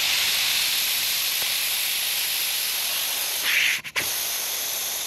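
Air hissing steadily out of a tire's valve stem with the valve core removed, the tire deflating. The hiss slowly tapers, flares briefly just before four seconds in, then breaks off for a moment.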